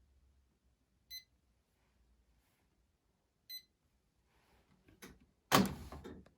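Two short, high electronic beeps from a household appliance, about two and a half seconds apart, then a loud, sudden handling noise near the end.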